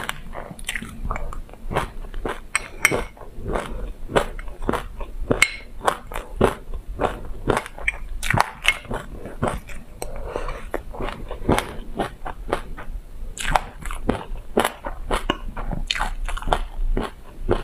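Close-miked crunching and chewing of a mouthful of sesame seeds: a dense, irregular run of crisp crunches, two or three a second.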